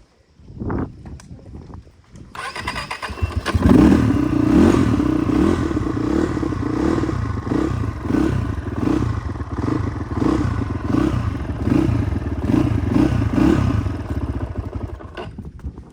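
Motorcycle engine coming in about three seconds in and running on with its note rising and falling about twice a second. A few short knocks come before it.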